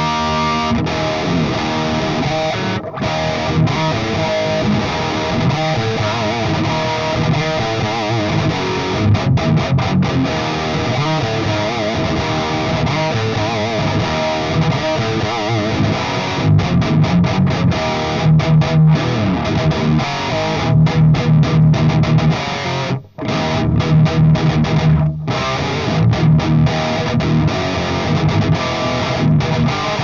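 High-gain distorted electric guitar playing a metal riff through the Trooper OverRider preamp pedal's overdrive channel, gain around three o'clock with the mids scooped. The riffing gets choppier in the low notes in the second half and stops dead twice, briefly, about 23 and 25 seconds in.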